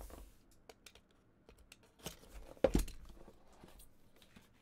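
A cardboard trading-card box being unsealed and its lid lifted off: light tearing, crinkling and scraping, with one sharp knock about two and a half seconds in.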